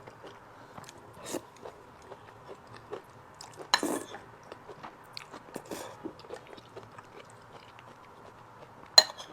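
Close-miked chewing and biting of food, with small irregular crunches and mouth clicks, a louder bite about four seconds in and a sharp click near the end.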